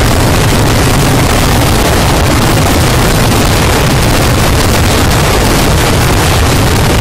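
Kerala temple-festival fireworks (vedikettu) going off in a dense ground-level barrage, the blasts following so closely that they merge into one loud, unbroken din.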